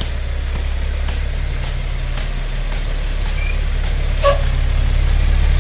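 An engine idling with a steady low rumble. A single sharp clink comes about four seconds in.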